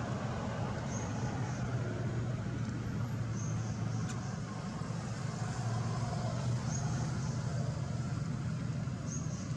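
Steady low background rumble, with four faint, short high-pitched chirps spread through it.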